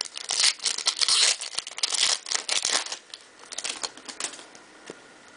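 Foil trading-card pack wrapper crinkling and tearing as it is ripped open by hand, for about three seconds, followed by faint handling clicks and rustles.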